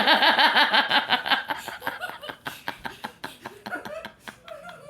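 A woman laughing hard in rapid pulses of about eight a second, loud at first, then trailing off into softer laughter.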